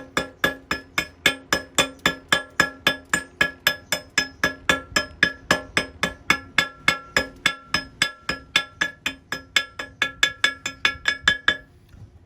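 Hammer rapping on welded square steel tube, about four blows a second, each blow ringing at the same metallic pitches; the hammering stops shortly before the end.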